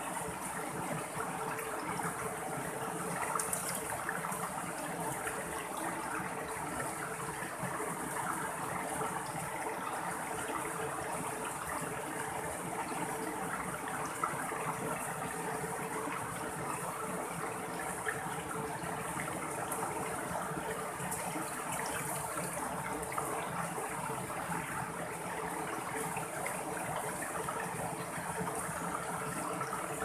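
Mountain stream flowing over small rock cascades and ledges: a steady, unbroken rush of running water.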